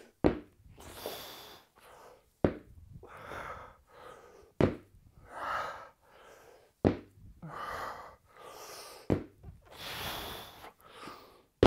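Heavy breathing and forceful exhales through a set of kettlebell deadlifts, with a thunk about every two seconds, six in all, as the pair of cast-iron kettlebells touches the floor at the bottom of each rep.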